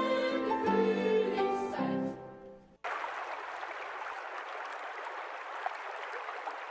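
Classical-style music with sustained sung notes, fading out about two seconds in. After a short gap a steady, even hiss takes over.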